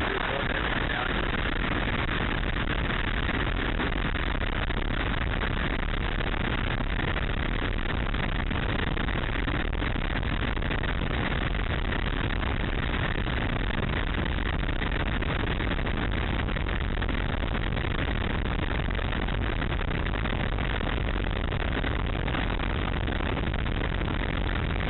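Light aircraft's engine and propeller running steadily in flight, heard from inside the cockpit as an even drone with a constant rushing noise over it.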